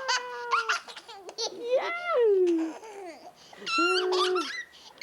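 A toddler laughing and squealing in delight, several high-pitched cries that glide up and down, with a held squeal about two seconds in and another near the end.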